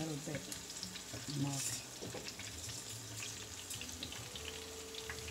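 Plantain slices sizzling and crackling as they shallow-fry in hot oil in a skillet, a steady spatter of small pops. A steady low hum joins about four seconds in.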